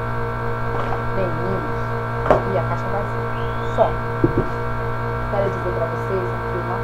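Electric fan running with a steady motor hum. A few short clicks and knocks come over it about two and four seconds in.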